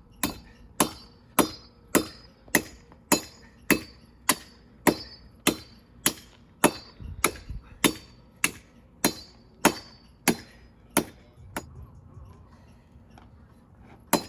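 Machete chopping into a pole in steady, even strokes, a little under two a second, each a sharp crack with a brief metallic ring from the blade. The strokes stop for a couple of seconds near the end, then start again.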